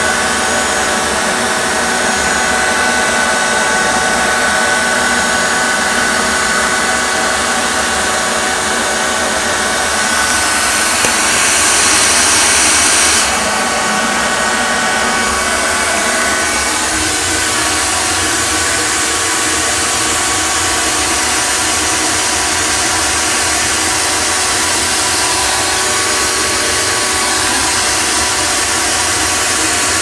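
Shop vac running steadily, a motor whine over rushing air as it pulls lint out of a dryer vent pipe. For a few seconds about a third of the way in it is louder and hissier, then it drops back sharply.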